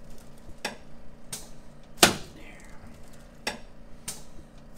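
Five sharp knocks and clicks, irregularly spaced, the third the loudest, from the padded chiropractic table and its headpiece as a patient settles onto his back.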